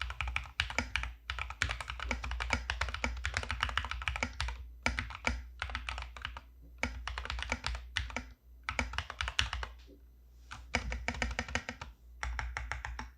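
Custom mechanical keyboard with lubed Glorious Panda tactile switches and double-shot PBT keycaps being typed on quickly. The keystrokes come in fast runs broken by short pauses, over a steady low hum.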